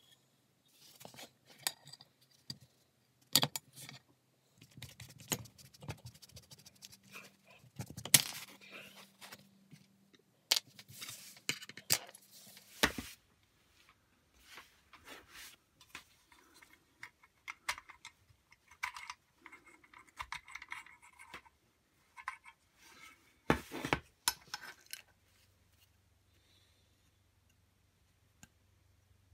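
Metal parts of an old hole punch clinking, tapping and scraping as it is taken apart by hand: the rusty steel pivot rod and pins are worked loose and parts are set down on a wooden board, with several sharp knocks among the lighter clicks.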